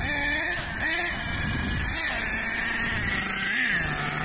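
Small two-stroke nitro engine (LRP ZR.30) of an RC monster truck revving up and down in short blips, then holding a steadier pitch that drops a step lower near the end.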